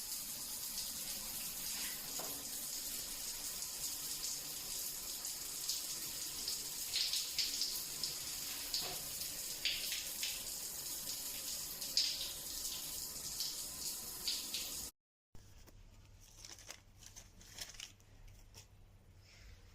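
Hot water running and splashing steadily from the outlet of a newly installed instant water heater. It cuts off suddenly about fifteen seconds in, leaving a much quieter stretch with a few faint knocks.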